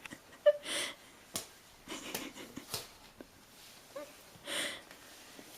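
A small child's breathy huffs, twice, with a few light taps in between.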